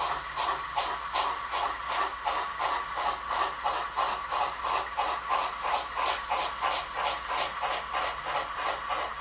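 HO scale model train running, with an even rhythmic pulse about three to four times a second over a faint steady tone.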